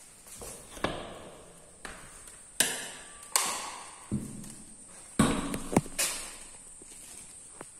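A series of sharp metallic clacks and knocks, each with a short ringing echo: a metal barrel bolt on a thin panel bathroom door drawn back and the door pushed open.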